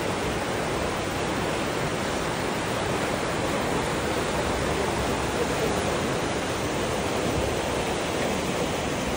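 Johnston Creek rushing through a narrow limestone canyon below: a steady, loud, unbroken wash of white water.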